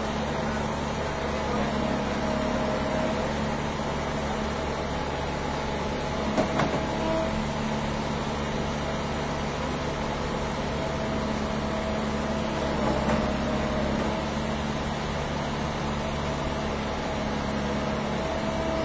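Backhoe's diesel engine idling steadily, with a single short knock about six seconds in.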